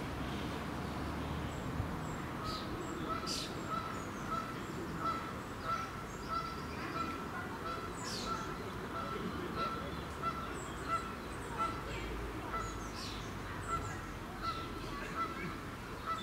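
Outdoor pond ambience: a short honk-like note repeated evenly about every half-second from a couple of seconds in, small birds chirping now and then, over a steady low background hum.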